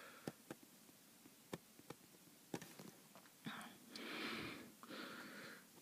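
Faint breathing close to the microphone, three breaths in the second half, with scattered light clicks of a stylus tapping a pen tablet while writing.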